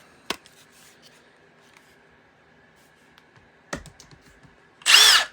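Milwaukee Fuel brushless impact driver run with a short trigger pull near the end, its motor whine rising and falling in pitch. Before that, a few light clicks from handling the tool.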